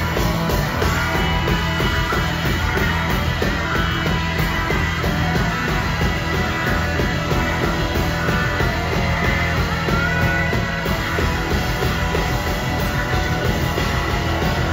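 Live rock band playing at full volume, dense and steady, with no breaks.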